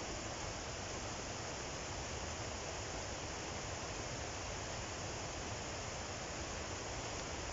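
Steady rush of flowing water from a nearby river, an even unbroken hiss with no distinct strokes standing out.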